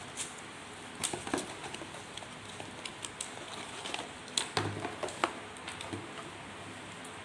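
Small plastic parts and packaging being handled: irregular light clicks and taps over a steady low hiss.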